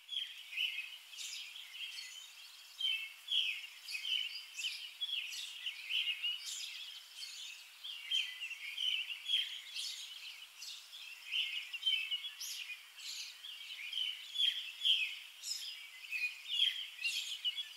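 Small birds chirping outdoors, a dense run of short, overlapping chirps from several birds.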